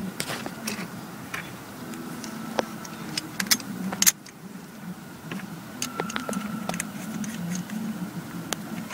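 Small metal parts clicking and clinking as hands handle a brake master cylinder, its steel mount, bolts and spacer. The clicks are scattered and sharp, the loudest about four seconds in, over low background noise.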